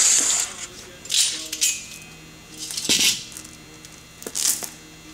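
Metal clinking and scraping as a long chainsaw bar and chain are handled and fitted onto a Homelite 750 chainsaw crankcase: several short separate clatters, the loudest about three seconds in.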